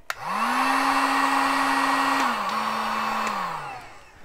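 Electric heat gun switched on with a click, its fan motor spinning up and blowing steadily to shrink heat-shrink tubing over a soldered resistor joint. Its pitch drops a step about two seconds in, then the motor winds down near the end.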